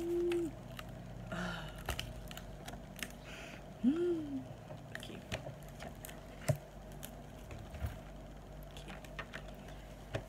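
A cardboard gift box and the plastic cosmetic packages inside it being handled and sorted: scattered light clicks and taps. A person hums briefly twice, once at the start and once about four seconds in.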